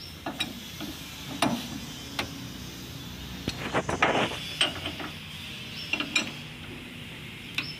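Metal hand tools clinking and knocking against an old wheel loader's engine as it is taken apart: scattered sharp knocks, with a quick cluster of them about four seconds in.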